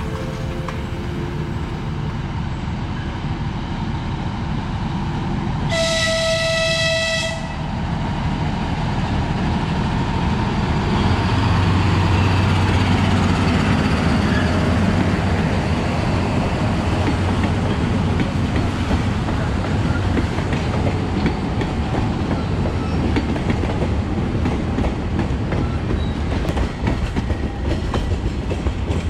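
TU7A narrow-gauge diesel locomotive passing with its passenger train. It gives one horn blast about six seconds in. Then its diesel engine runs loudest as it goes by, and the cars roll past with wheels clicking over the rail joints.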